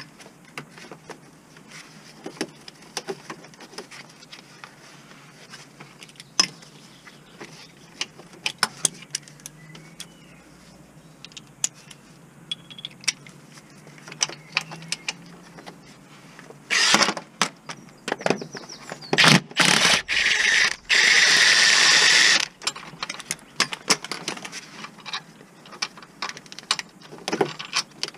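Metal tools clicking and knocking on fastenings around a van's gearbox bellhousing while it is being undone for a clutch change. About two-thirds through, a power tool runs in several short spurts, the longest about one and a half seconds.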